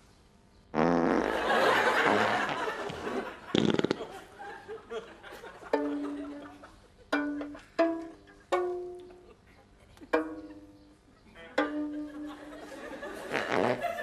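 Comic fart sound effects: a long noisy burst about a second in, then a short buzzy fart. After that comes a slow tune of single plucked-string notes, and another noisy burst near the end.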